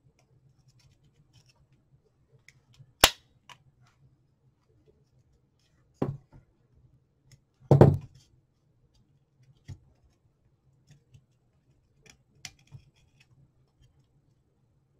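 Sharp plastic clicks and snaps as a small tool pries at the opened case of an HP 48SX calculator, a handful of separate clicks with the loudest about three seconds in and a cluster near eight seconds, over a faint low hum.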